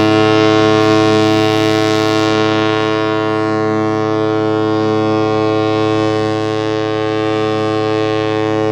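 Ship's horn sounding one long, steady, deep blast, held without a break, as the ship leaves port.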